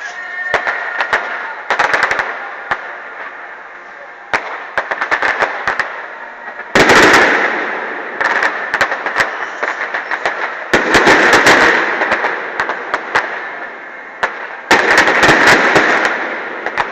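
Fireworks display: aerial shells bursting in rapid volleys of sharp bangs and crackles. The densest, loudest volleys come about seven, eleven and fifteen seconds in.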